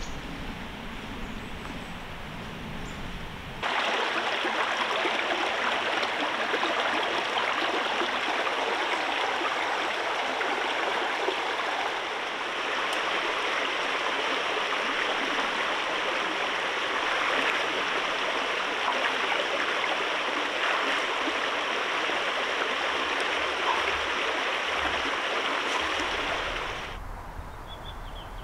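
Shallow stream rushing steadily over rocks. It comes in suddenly a few seconds in and cuts off near the end.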